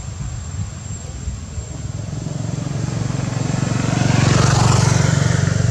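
A motor vehicle passing close by. Its engine grows louder, peaks about four to five seconds in, then eases a little.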